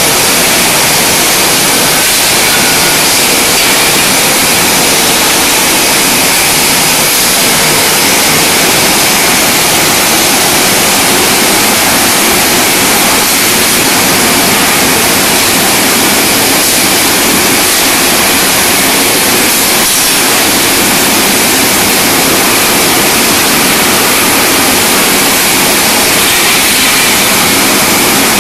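Brass rod straightening machine running: a loud, steady, hiss-like mechanical noise that holds even throughout.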